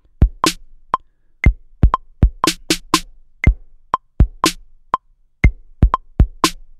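808 drum kit played from Maschine's pads: deep 808 kick thuds and sharper snare hits in a loose beat. Under it a metronome clicks steadily twice a second (120 BPM), with a higher click on the first beat of each bar.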